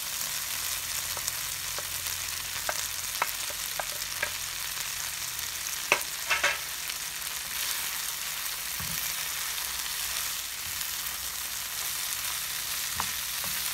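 Chicken and vegetables frying in a pan, a steady sizzling hiss, with a few clicks and knocks against the pan, the loudest cluster about six seconds in.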